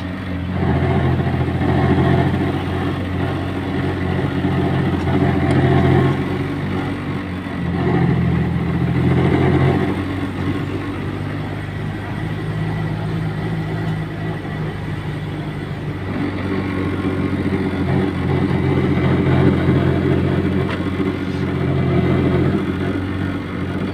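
Motor vehicle engine running under way, its revs rising and falling a few times as it is driven along a rough road.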